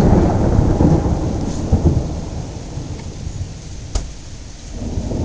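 Thunder rumbling over steady rain, loudest right at the start and dying away over a couple of seconds. A single sharp click comes about four seconds in, and the rumble swells again near the end.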